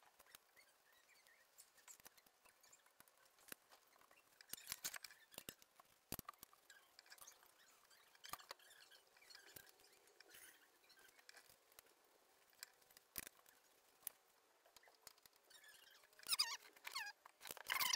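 Faint, scattered clicks and scrapes of a rear differential cover and its bolts being handled and threaded in by hand, with a busier run of clicks near the end.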